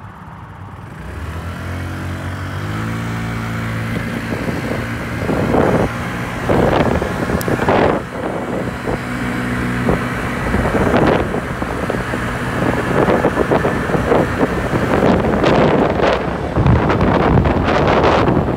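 Yamaha BWS (Zuma) 50cc scooter engine pulling away from a stop and accelerating, its pitch rising over the first few seconds and then holding steady as speed builds. Wind rushes over the microphone, growing louder and gusting as the scooter gathers speed.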